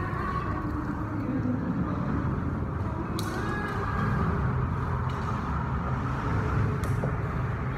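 Steady low rumble of road traffic on the bridge overhead, with two short sharp clicks about three and seven seconds in.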